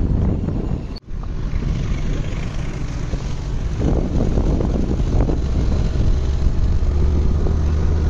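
Wind buffeting the microphone, a steady low rumble. The sound drops out for an instant about a second in.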